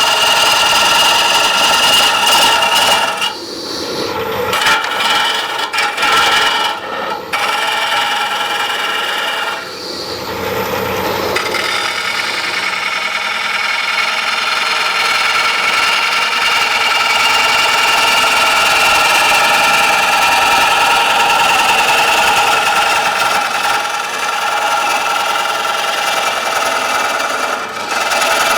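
Turning tool cutting a freshly cut green wood bowl blank spinning on a wood lathe: a steady, loud cutting sound with a few short breaks in the first ten seconds as the tool comes off the wood.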